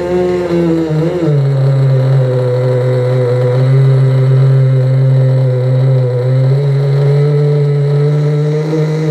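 Small GS 11 engine of a Kyosho Porsche radio-controlled model car running. Its pitch wavers for about the first second, then it runs at a steady speed.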